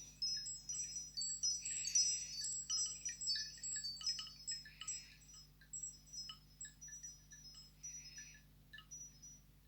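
Nokia Asha 200 ringtone playing: a tinkling, chime-like tune of many short high notes, densest in the first half and thinning out before it stops near the end.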